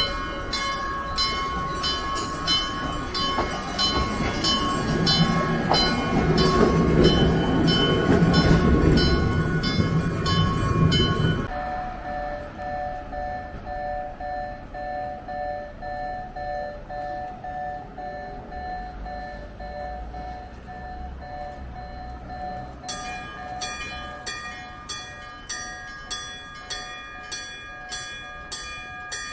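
Randen level-crossing warning bell, a real mechanical bell rather than an electronic alarm, ringing in steady, evenly repeated strokes. During the first eleven seconds a loud low rumble of a passing tram runs under the bell and then cuts off suddenly.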